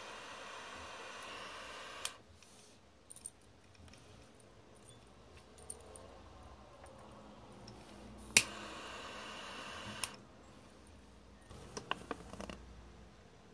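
Small handheld butane gas torch burning with a steady hiss that stops about two seconds in. It is relit with a sharp piezo-ignition click, hisses for about a second and a half, and is shut off with a click. Small handling clicks fall between the two burns and near the end.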